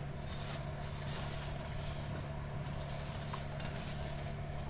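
Steady low hum of a running motor, even in level throughout, over a faint background hiss.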